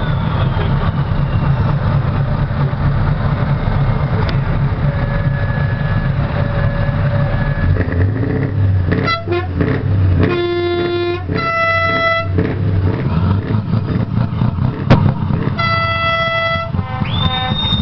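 Scania V8 diesel truck engine running steadily through a large open exhaust pipe. Horns sound several blasts at different pitches about halfway through and again near the end.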